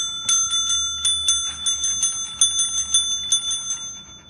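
A small metal bell struck rapidly and repeatedly, about four to five strikes a second, each strike ringing on into the next. The strikes thin out and fade near the end.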